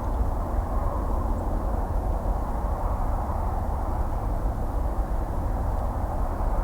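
Distant highway traffic: a steady low rumble and wash of tyre and engine noise, no single vehicle standing out.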